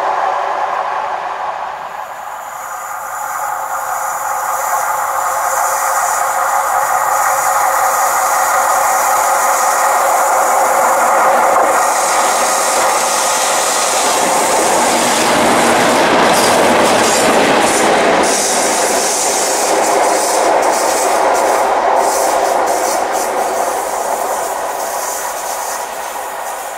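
Two Class 50 diesel locomotives running through a station, their English Electric engines giving a steady drone of several tones under wheel and rail noise. The sound builds as they approach and is loudest as they pass about two-thirds of the way in, with a quick run of wheel clacks over the rail joints, then fades.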